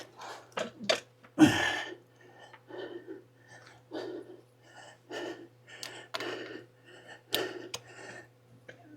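A man breathing hard in short gasps and puffs while straining, with a few light sharp clicks in among them and a steady low hum underneath.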